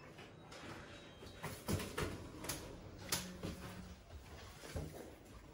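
Scattered knocks and clunks indoors, about half a dozen spread over a few seconds, with a brief low hum just after three seconds in.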